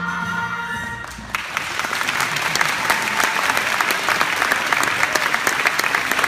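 Music ends on a held chord, and about a second and a half in an audience breaks into applause that keeps going.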